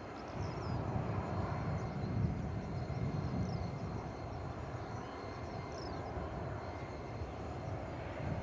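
Twin Williams FJ44 turbofans of a Cessna Citation CJ4 business jet running at low taxi power: a steady distant rumble with a faint high whine over it.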